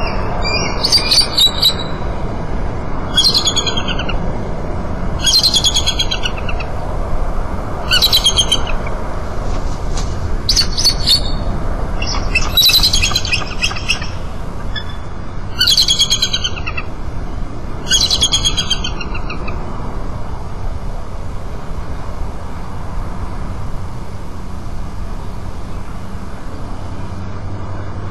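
Bald eagle giving repeated high, chittering calls: bursts of rapid piping notes every two to three seconds that stop about two-thirds of the way through, over a steady low rumble.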